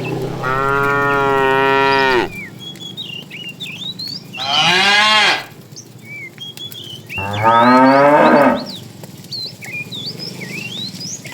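Cattle mooing: three loud calls, a long level one followed by two shorter calls that rise in pitch.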